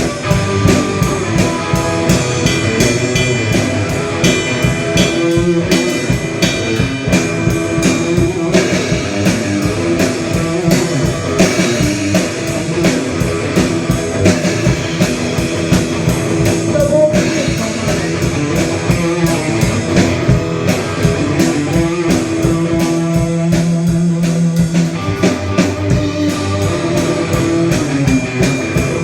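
A live rock band playing: guitar over a drum kit keeping a steady beat.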